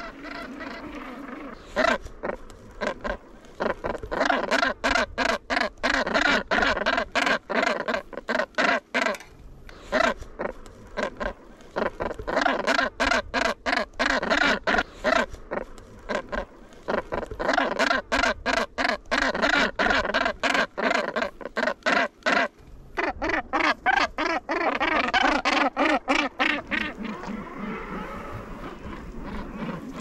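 Northern gannets calling in their breeding colony: harsh calls repeated in rapid pulses, with a couple of short pauses, thinning out near the end.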